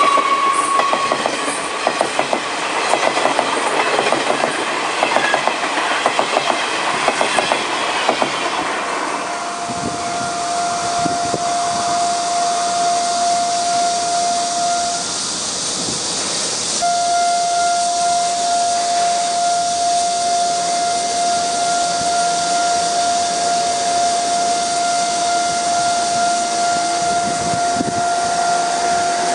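Taiwan Railways Chu-Kuang express coaches rolling past close by. For the first several seconds the wheels clatter rapidly over the rail joints with a high squeal. Then a steady high whine sits over a hiss of rolling noise, briefly dropping out about fifteen seconds in.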